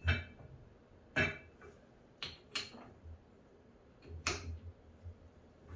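Metal clanking as a heavy steel lathe chuck and its hoist rigging are handled: five sharp clinks and knocks with a short metallic ring, spaced about a second apart.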